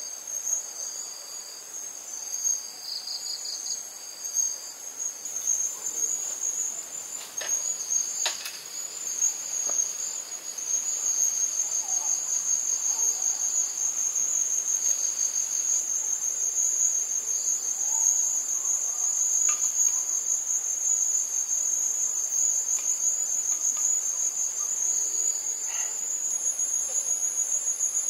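Insects, crickets by the sound of it, trilling steadily at a high pitch, with a second, on-and-off pulsing trill beneath it; the chorus grows louder about ten seconds in. A couple of faint clicks come about seven and eight seconds in.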